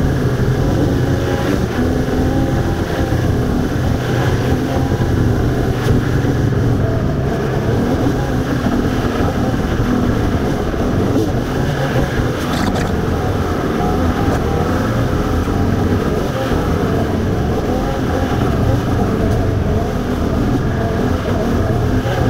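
An engine running steadily: a low, even rumble.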